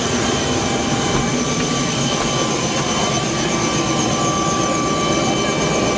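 Helicopter running on the ground at close range: a loud, steady high whine over a constant rushing rumble of the engine and rotor.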